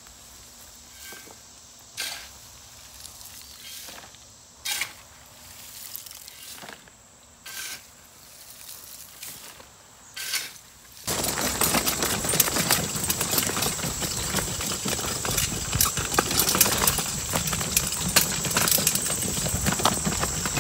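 Shovel scooping wood chips and tipping them into a plastic garden cart, a few separate scrapes and thuds. About eleven seconds in, a loud continuous rattling and rustling starts as the loaded cart is pulled across the grass.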